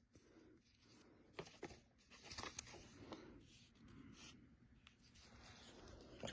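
Near silence, with faint scattered clicks and soft rustles of paper being handled.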